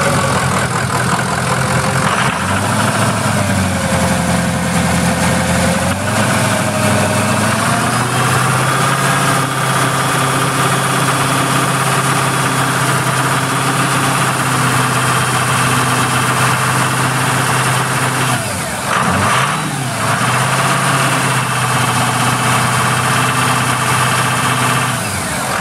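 2005 Ford E350 van's engine idling steadily. Its pitch steps up slightly about a third of the way through, then dips briefly and recovers about three-quarters of the way through.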